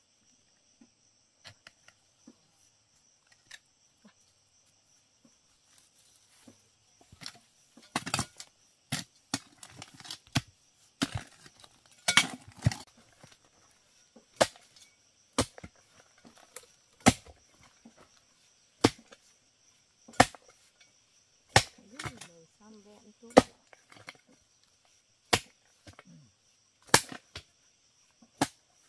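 Repeated sharp chopping strikes, about one every one and a half seconds from about a quarter of the way in, over a steady high chirring of crickets.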